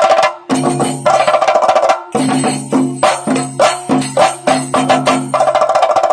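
Several chenda drums beaten with sticks in a chenda melam ensemble. Fast dense rolls break off briefly about half a second in and again near two seconds, give way to separate strong strokes about three a second, and return to fast rolls near the end.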